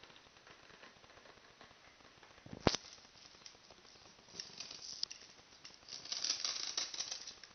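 Pencil lead of a metal compass scratching and rubbing across styrofoam while a circle is drawn, the scratching heaviest in the second half. A single sharp click comes about two and a half seconds in.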